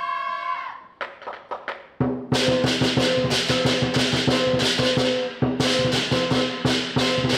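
Southern lion dance percussion: a gong rings out and fades, a few sparse drum strokes follow, then about two seconds in the big drum breaks into fast, dense beating with cymbals and gong crashing along. It drops out for a moment a little past halfway, then goes on.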